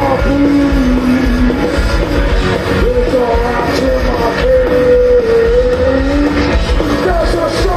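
Punk rock band playing live through a festival PA, heard from the crowd: loud, dense guitars, bass and drums, with long held notes that waver slightly in pitch over the top.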